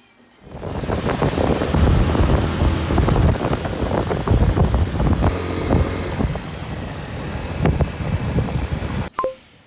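Loud rumbling road-vehicle noise with wind buffeting the microphone, which cuts off abruptly near the end and is followed by a brief beep.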